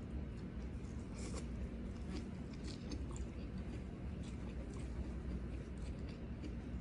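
Close-miked chewing and soft, scattered clicks of someone eating rice with their fingers, over a steady low hum.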